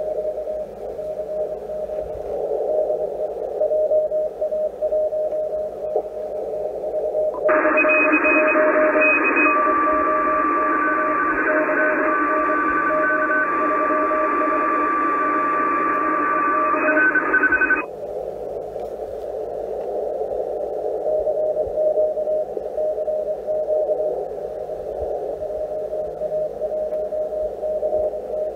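ICOM IC-746 HF transceiver receiving CW through its DSP audio peak filter: a narrow, low-pitched receiver hiss with a Morse code note keyed on and off. About seven seconds in, the filter is switched off and the sound opens up to a wider, brighter hiss carrying several other signal tones. About ten seconds later the filter goes back on and the narrow hiss with the Morse note returns.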